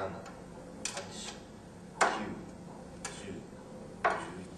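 Sharp clicks and knocks, about one a second, with the loudest about two seconds in, from parts being handled during printer disassembly.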